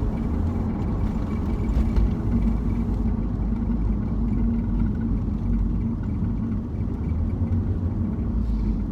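Steady road and engine rumble inside a BMW Z4's cabin, with a faint, rapid, regular chirping from the dashboard. The source of the chirp is unknown; the owner has ruled out the blower fan.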